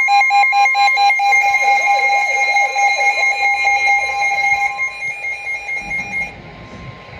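Several weather alert radios sounding their alarms together, triggered by an incoming NOAA Weather Radio alert: loud rapid beeping and warbling at several pitches. The alarms drop out in stages about five and six seconds in.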